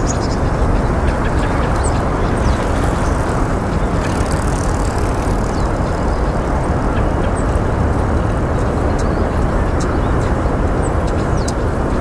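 Steady roar of distant road traffic, with faint, short, high-pitched ticks and chirps scattered through it.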